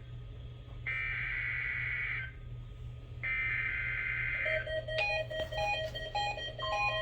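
EAS SAME header data bursts from a NOAA Weather Radio broadcast: two harsh, buzzy bursts of about a second and a half each, over a steady low hum. They mark the start of a required weekly test. About four and a half seconds in, a repeating pattern of short beeping tones like a simple tune begins.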